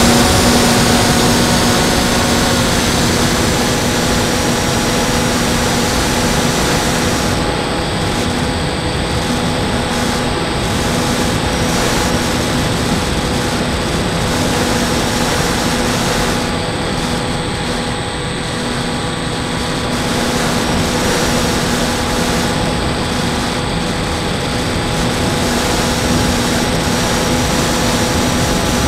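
Brushless electric motor and pusher propeller of a Bixler 2 RC foam plane running steadily in flight, heard from the onboard camera, with airflow rushing over the microphone and a thin high whine.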